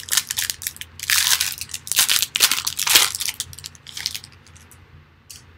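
Plastic foil wrapper of a Topps 2020 Baseball Series One card pack crinkling and crunching in the hands in a run of loud bursts, trailing off near the end.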